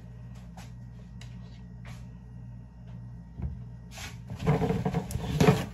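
Kitchen handling noises over a steady low hum: a few light clicks and a knock, then about a second and a half of loud rustling and crinkling, as of paper towel or a plastic bottle being handled.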